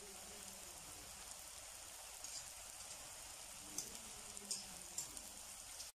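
Batter-coated onion rings deep-frying in hot oil in a wok: a soft, steady sizzle with a few small crackles. It cuts off abruptly near the end.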